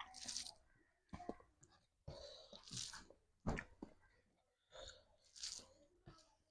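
A person chewing food close to the microphone: several short, irregular bursts of wet mouth and chewing sounds with brief pauses between.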